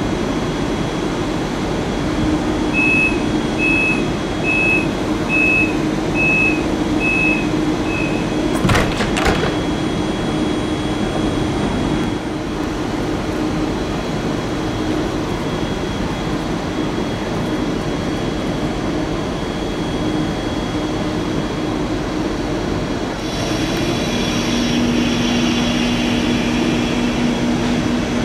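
Train door-closing warning: seven short high beeps less than a second apart, then the doors shut with a couple of sharp knocks. Near the end the electric train's drive starts up with a whine of several steady tones, over constant station noise.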